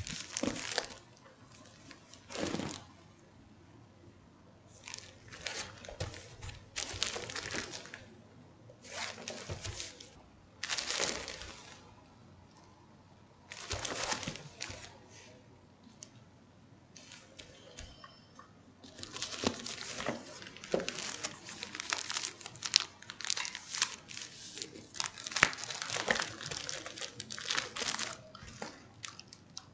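Plastic poly mailer crinkling and rustling in bursts as it is handled, with brief pauses between, busier and louder in the second half.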